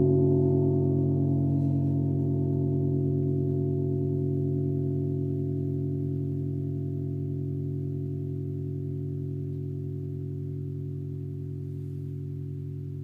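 A 70 cm Wuhan tam-tam ringing on after a mallet strike: a deep hum under a cluster of higher tones that waver slightly, slowly and steadily dying away.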